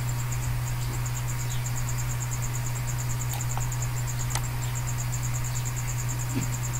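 Steady background noise: a low hum under a high-pitched chirp that pulses about five times a second, with a couple of faint clicks in the middle.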